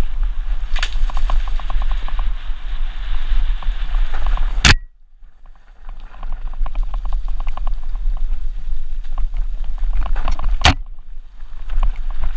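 Mountain bike descending a rough dirt trail: low wind buffeting on the microphone and rapid clattering of the bike over loose stones. Two sharp knocks, one about halfway through and one near the end, each followed by a brief quieter moment.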